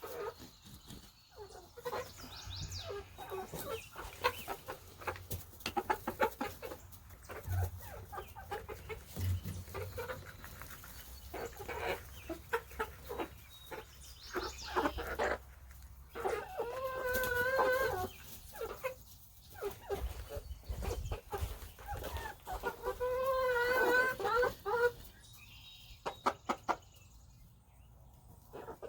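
Backyard hens clucking softly as they feed, with many short taps and clicks throughout. Two longer, wavering hen calls come about two-thirds of the way in and again a few seconds later.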